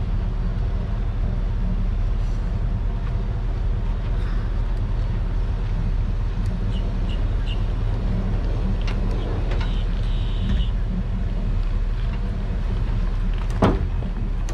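Low, steady rumble of a vehicle engine running as a boat trailer is moved slowly across the ramp lot, with one sharp knock near the end.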